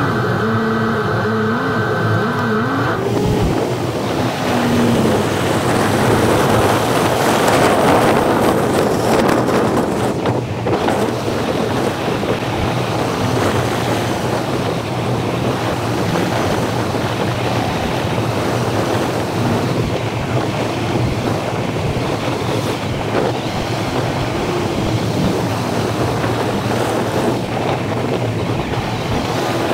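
Wind rushing over the microphone of a camera mounted on the car's hood, mixed with tyre and engine noise from a car driving along a winding road. A low, steady engine hum underlies the noise, which swells for a few seconds near the first third.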